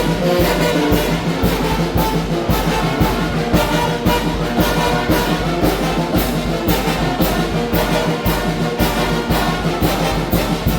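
Mexican brass band (banda) playing a huapango, with brass carrying the melody over a steady percussion beat of about three hits a second.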